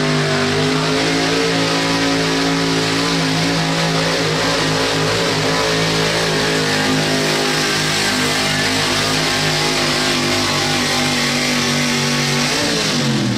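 A Pro Street 4x4 pulling truck's engine held at high, steady revs under full load as the pickup drags the weight-transfer sled. Near the end the revs fall away as the driver comes off the throttle at the end of the pull.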